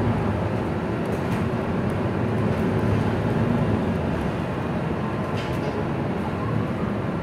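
Inside a moving MAN NL323F Lion's City single-deck bus: the diesel engine running and the cabin full of steady road and drivetrain noise as the bus drives along the street, swelling slightly a few seconds in.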